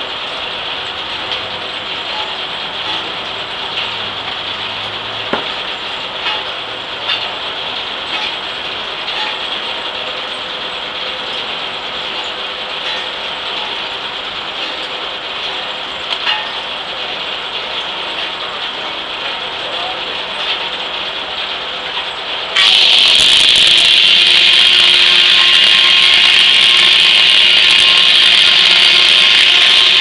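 Gaar Scott steam-driven circular sawmill running with a steady mechanical clatter and occasional clicks. About three-quarters of the way through, the big circular blade bites into an ash log, and a much louder, steady ripping cut takes over.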